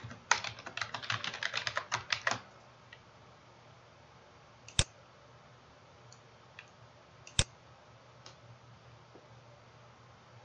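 Rapid typing on a computer keyboard for about two seconds, then two single sharp clicks a few seconds apart from a computer mouse.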